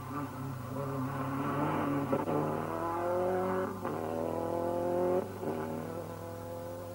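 Rally car engine revving hard as the car accelerates past, its pitch climbing, then dropping back sharply twice, about four and five seconds in, as it changes up a gear.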